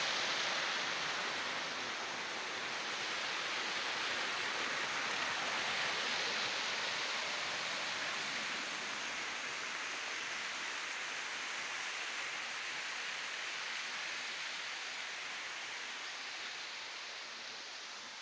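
Water pouring down artificial rock cascades into a pool, a steady rushing and splashing that fades near the end.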